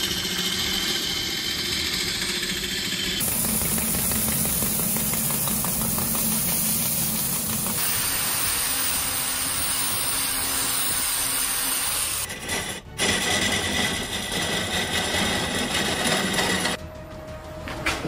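Large wood lathe spinning a log while a cutting tool turns it, a steady dense grinding and shaving noise. It changes abruptly several times.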